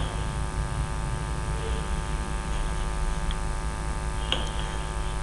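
Steady electrical mains hum and buzz on the recording, with a few faint short clicks.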